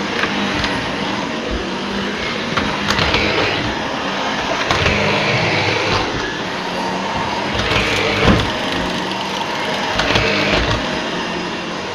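Shark Rotator Professional Lift-Away upright vacuum cleaner running steadily while being pushed across the floor. Its level swells and dips every couple of seconds, with a few sharp clicks.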